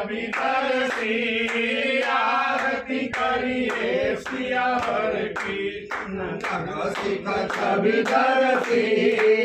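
Group of voices singing a devotional aarti song together in a steady chant-like melody, with hand claps keeping time.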